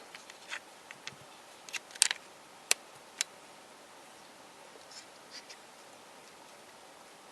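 Cast polyurethane resin puzzle pieces being handled, clicking and tapping against each other. A scatter of light clicks in the first three seconds, the sharpest about two seconds in, then a few faint ticks about five seconds in.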